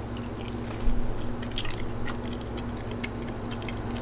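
A person chewing soft food close to the microphone, with small wet mouth clicks and a soft bump about a second in.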